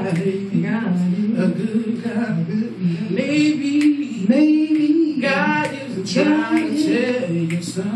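Two women singing a gospel song together into microphones.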